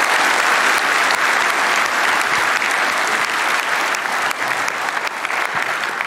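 Audience applauding steadily, easing off slightly near the end.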